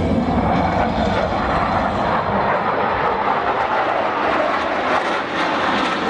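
Jet aircraft in flight: a loud, steady rush of engine noise whose deep rumble eases a little past midway.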